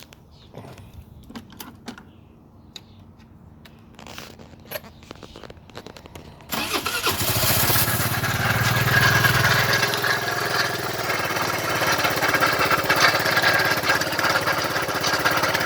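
A few light clicks, then about six and a half seconds in the 2006 Vespa GT200's single-cylinder four-stroke engine starts and runs with a metallic clanking, like scraping metal, which the owner suspects is rod knock. The engine is running with its coolant almost empty.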